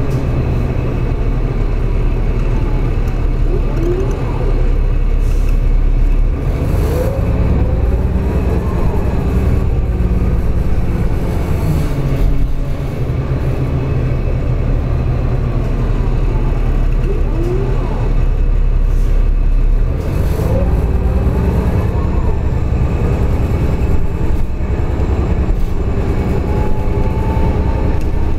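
Flyer D40-LF diesel city bus heard from inside the passenger cabin while driving. The engine drones steadily, and its whine rises and falls in pitch as the bus speeds up and slows. The low drone changes level about 6 seconds in and again about 20 seconds in.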